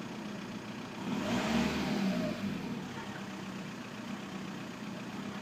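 VW Bora's AJM 1.9 TDI pumpe-düse four-cylinder diesel idling, briefly revved about a second in before dropping back to idle. The owner puts the engine's running down to bad injectors.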